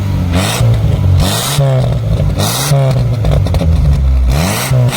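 1996 Maruti Suzuki Esteem's 1.3-litre four-cylinder petrol engine blipped repeatedly, its pitch rising and falling with each rev. Short bursts of exhaust popping come several times between the revs.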